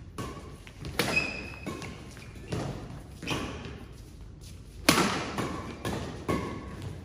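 Badminton rackets striking the shuttlecock in a fast doubles rally, about eight sharp hits in quick succession, the loudest about a second in and about five seconds in, echoing in a large hall. Short squeaks of shoes on the court mat come between the hits.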